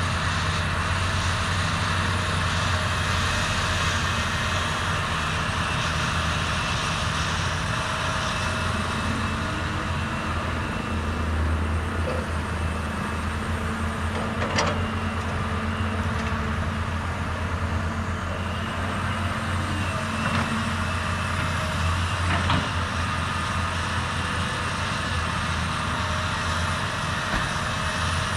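Heavy diesel engines of a CAT 320D RR excavator and dump trucks running steadily at work, with two sharp knocks about halfway through and again some eight seconds later.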